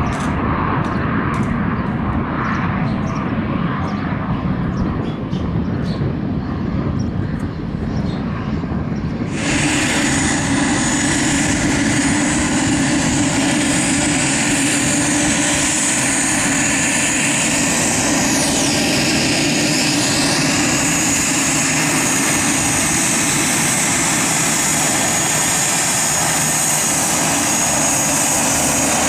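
Pilatus PC-12 single-engine turboprop heard from afar as it lands, a low rumble. About nine seconds in the sound cuts suddenly to the close, steady high whine and propeller drone of a PC-12 taxiing at low power.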